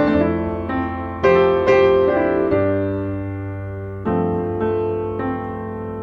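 Background piano music: struck notes and chords that ring and fade over a held bass, with new chords about a second and a half apart.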